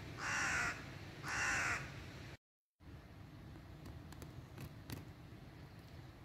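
A crow cawing twice, harsh calls about a second apart. Then the sound cuts out for a moment and only a faint outdoor background with a few light ticks remains.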